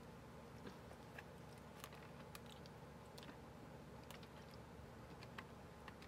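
Faint, scattered mouth clicks and smacks of someone chewing food, over a low steady room hum.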